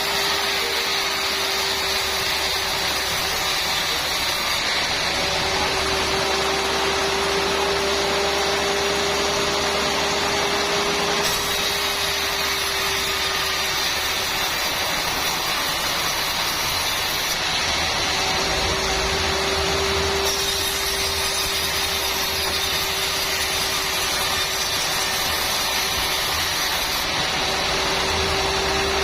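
Sawmill saw running and cutting through trembesi (rain tree) timber, a loud steady mechanical noise with a constant tone held on top.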